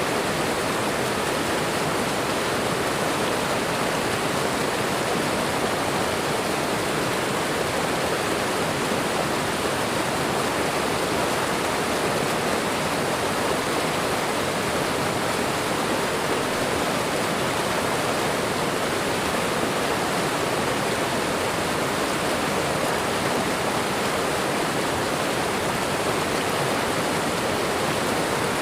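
Waterfall and running water rushing steadily, with no change.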